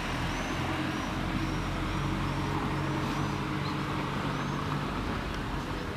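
Town-square traffic ambience: a vehicle engine's steady low hum over a wash of road noise. Faint high chirps repeat about twice a second above it.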